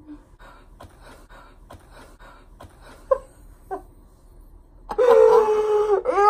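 A young woman's long, loud held cry, with a second rising cry near the end, as a paper plate of whipped cream is pushed into her face. Two short yelps come about three seconds in.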